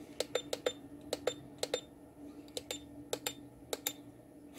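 Small push buttons on a FNIRSI DC600L power supply being pressed repeatedly: about seven sharp clicks, each a quick pair of press and release.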